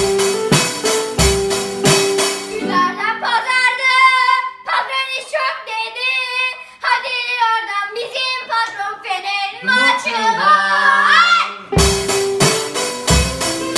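A home band of drum kit, digital piano and a small strummed string instrument playing a chant tune; after about three seconds the instruments drop out and a high child's voice sings on alone for about nine seconds, then the drums and band come back in near the end.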